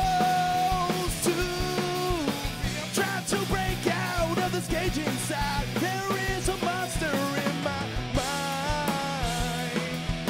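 Live rock band playing: electric guitars, bass guitar and drums, with a male lead vocal singing over them.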